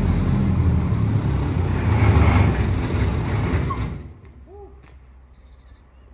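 Wood chipper running loudly, then its noise falls away quickly about four seconds in, leaving only a faint low hum.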